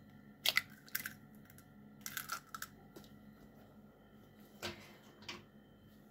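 A hen's egg being cracked open by hand, the shell prised apart with the fingers: a few short crackles and clicks of breaking eggshell spread over several seconds.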